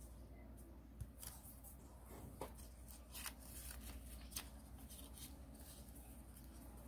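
Faint rustling and crinkling of origami paper being folded and creased by hand, with a few short sharp crackles, the clearest about one, two and a half, three and four and a half seconds in.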